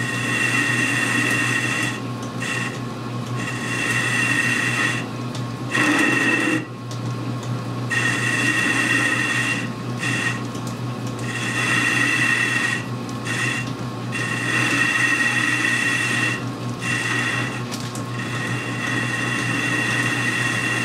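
Metal lathe facing off the muzzle end of a rifle barrel: a steady motor hum under a high-pitched cutting tone that starts and stops many times as the tool cuts.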